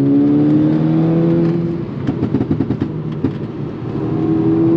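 Volkswagen Mk6 Golf R's turbocharged four-cylinder pulling with a slowly rising note through a loud aftermarket turbo-back exhaust, then going off throttle with about a second and a half of exhaust pops and crackles, before pulling again near the end.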